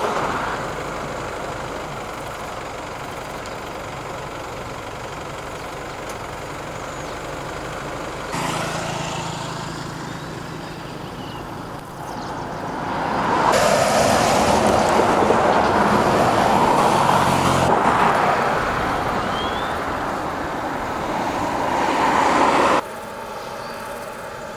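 Road vehicle engines and traffic noise, steady within each stretch but changing abruptly several times, loudest from about halfway through until near the end.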